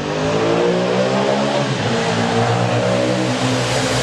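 An engine revving, its pitch stepping up and down.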